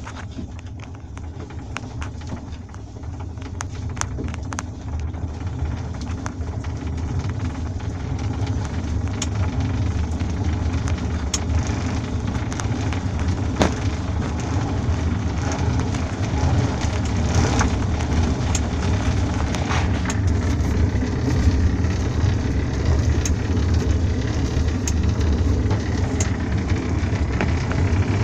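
Quest velomobile rolling along and gradually picking up speed, a steady low rumble with scattered sharp clicks. The clicking comes from the stock SPD pedal, whose bearing is worn out.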